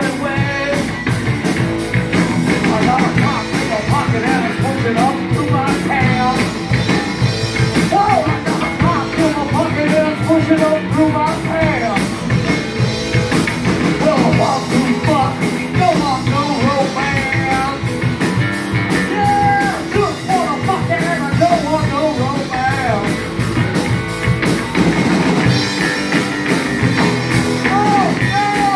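Live rock band playing: a man sings over electric guitar, bass guitar and a drum kit.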